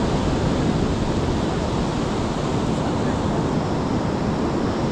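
Steady rush of surf breaking on the beach, with wind buffeting the microphone.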